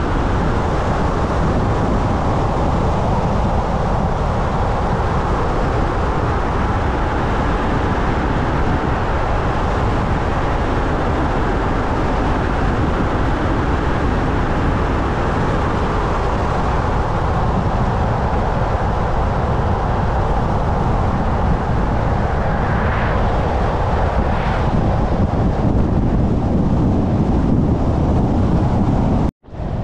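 Steady road and tyre noise of a car driving along an open road. Twice, shortly after the two-thirds mark, a brief hiss rises as oncoming vehicles pass. Near the end the sound cuts out abruptly for a moment.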